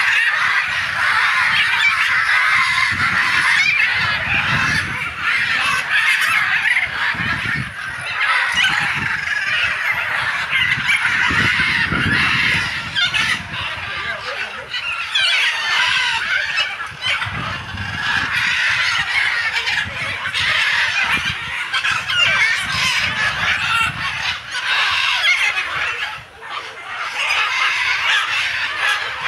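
Many birds calling at once, a dense, continuous din that dips briefly near the end.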